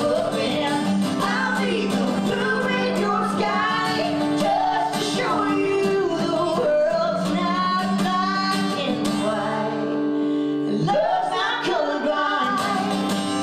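Live country song: a woman singing lead over strummed acoustic guitar, with a man's voice joining in.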